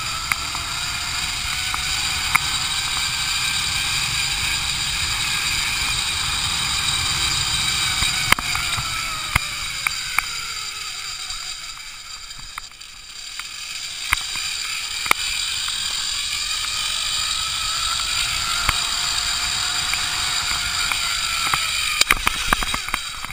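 Zip-line trolley pulleys running along a steel cable, a steady whine over wind rumble; the whine drops in pitch about halfway as the trolley slows and rises again as it picks up speed. A few sharp knocks come near the end.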